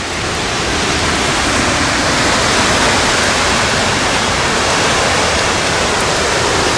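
Tropical-storm wind and rain: a loud, steady rush of noise with no pitch, the wind buffeting the microphone, swelling slightly in the first couple of seconds.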